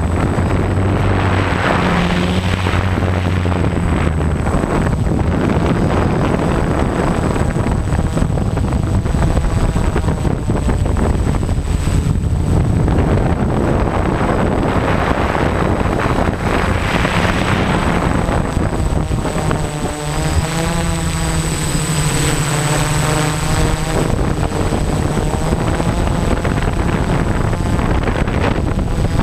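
DJI F550 hexacopter's six electric motors and propellers running steadily, heard from the camera on the craft with heavy wind noise on the microphone; about two-thirds of the way through, the motor tones waver up and down as their speed changes.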